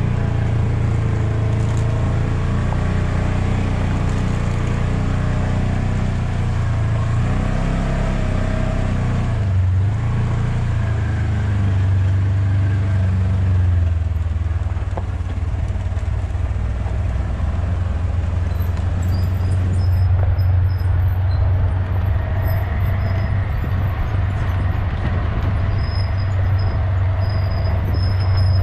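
Polaris utility vehicle's engine running steadily while driving on a dirt road. Its brakes squeal faintly and high-pitched about two-thirds of the way in and again near the end.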